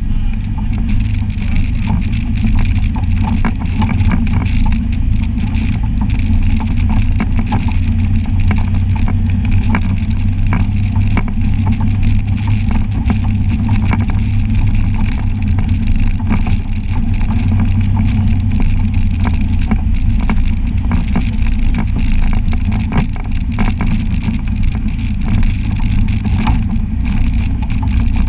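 Side-by-side UTV engine running steadily while driving a rough, rocky trail. Many sharp clicks and knocks sound over the top.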